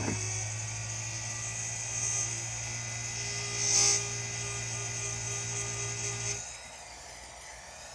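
Small electric rotary tool running steadily while the tip of a titanium pick is ground to sharpen it, with a brief louder grind near the middle. The motor stops about six and a half seconds in.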